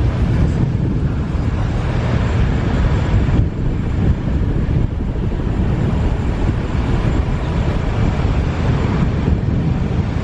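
A car driving along at street speed, with steady road noise and wind noise buffeting the microphone.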